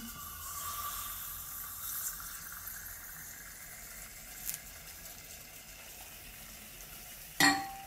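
Liquid oxygen being poured into a glass beaker over iron wool, boiling off on contact with a steady hiss. Near the end there is a short, louder sound with a brief ringing tone.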